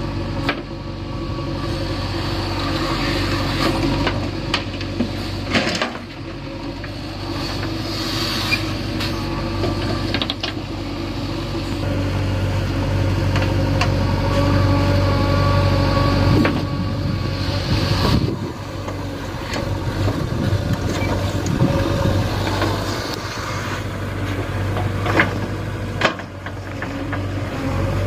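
JCB 3DX backhoe loader's diesel engine running, its loudness rising and easing as the backhoe arm digs and lifts loads of wet soil. A few sharp knocks are heard.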